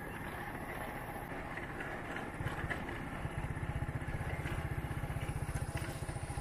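Motorcycle engine running at low revs over road noise. About two seconds in, its rapid, even firing pulse becomes clear and stays.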